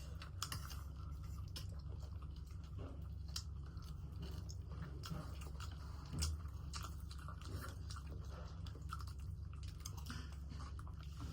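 Close-up chewing and biting of chowmein with capsicum, with wet mouth smacks, small clicks and light crunches scattered irregularly, over a steady low hum.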